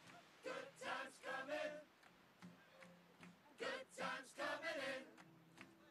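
Faint singing voices in two short runs of phrases.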